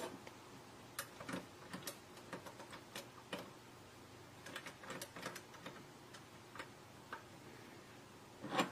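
Thumb wheels of a SnapSafe three-digit combination lock box being rolled to the code, giving faint, irregular small clicks, one to three a second, as each digit steps into place. A brief louder sound comes near the end.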